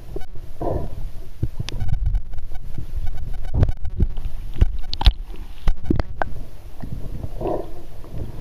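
Muffled underwater rumble of moving sea water picked up by a submerged camera, with irregular sharp clicks and knocks.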